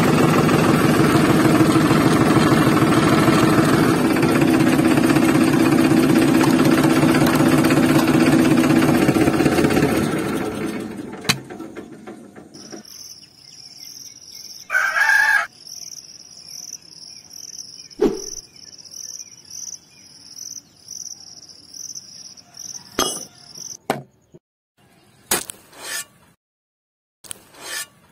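A steady, rhythmic tractor-engine putter fades out about eleven seconds in. Insects then chirp in a regular pulse, a rooster crows once, and a few short knocks and scrapes follow.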